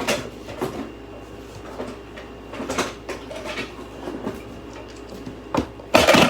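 Scattered knocks and clatters of hard objects being handled, with a louder rattling clatter near the end.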